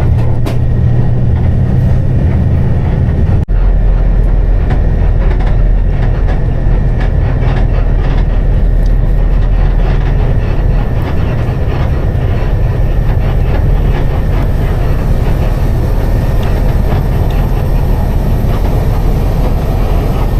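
Loud, steady rumble of a moving vehicle heard from on board, with constant small rattles and clicks over it. The sound drops out briefly about three and a half seconds in.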